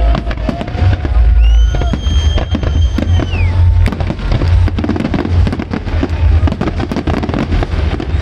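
Fireworks going off in quick succession: a dense run of bangs and crackling over a continuous low rumble of shell bursts, with music playing alongside.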